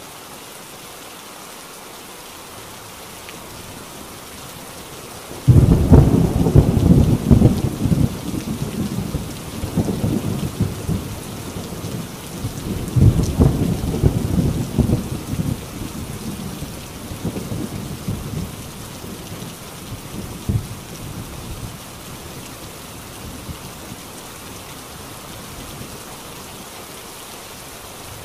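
Heavy rain pouring steadily on a tin roof. About five seconds in, a sudden loud crack of thunder breaks into a long, low rolling rumble that swells several times and fades away over the next fifteen seconds.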